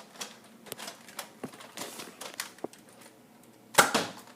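Irregular light plastic clicks and taps from a Nerf blaster being handled, with one much louder sharp sound near the end.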